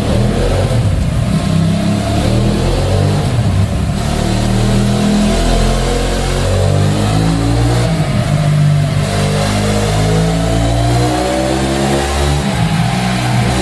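Benelli Leoncino 800's parallel-twin engine running through a Mivv MK3 slip-on exhaust, revving and accelerating. Its pitch climbs steadily over the last few seconds.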